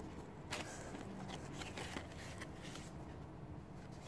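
Faint rustling and light clicks of cardstock journaling cards and paper being handled.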